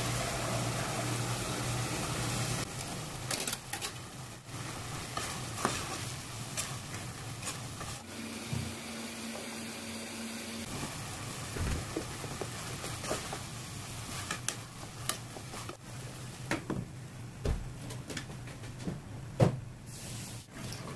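Beef giniling sauce simmering and sizzling in a pot, with scattered knocks and clinks of a utensil against the pot and a sharper knock near the end.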